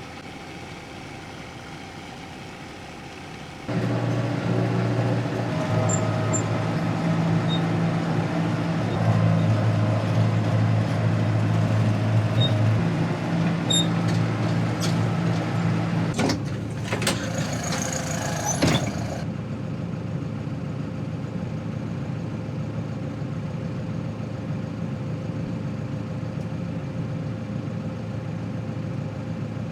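A faint hum, then after a few seconds an engine is suddenly loud and runs steadily, its pitch shifting now and then. Past the middle there is a brief burst of hiss and clicks, after which the engine runs on more evenly and a little quieter.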